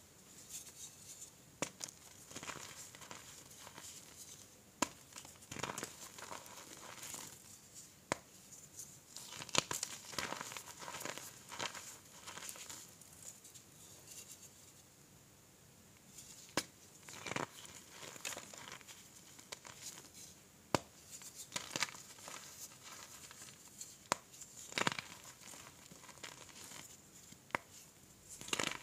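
Hands crushing and crumbling reformed gym chalk in a heap of chalk powder: steady soft crunching and rustling, broken by sharp cracks several times as pieces give way, with a quieter stretch a little before the middle.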